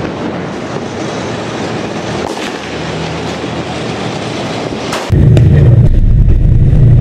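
Even rushing noise with a sharp crack about two and a half seconds in and another just before five seconds. Then the sound jumps suddenly to the loud, low rumble of a battle tank's engine, heard from a camera mounted on the tank's turret.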